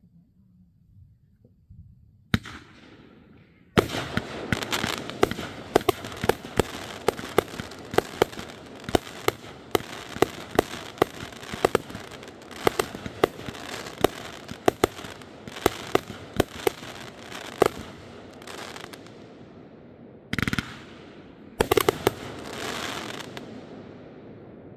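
Aerial fireworks: a single bang, then a rapid string of sharp bangs, about two a second, over dense crackling for some fifteen seconds. After a short gap comes a final cluster of bangs that fades away.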